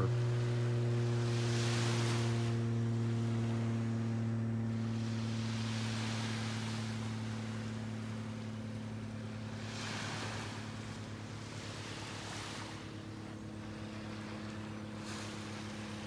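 Steady low drone of an airplane passing overhead, several even tones held together and slowly fading. Small waves wash onto the beach every few seconds.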